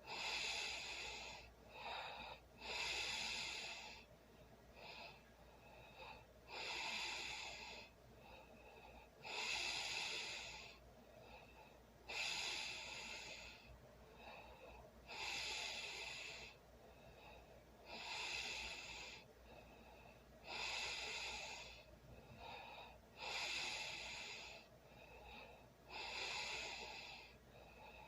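A sleeping person snoring: a loud, noisy breath about every two and a half to three seconds, with fainter breaths between them.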